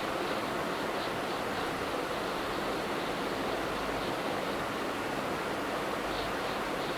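SMD hot-air rework station blowing a steady hiss of hot air, melting the solder on a phone board's RF connector to desolder it.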